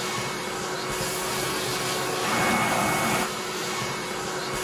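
Backpack vacuum cleaner running with a steady whine, its hose nozzle sucking up dirt from the floor of the bus. The sound swells for about a second midway as the nozzle moves over the floor.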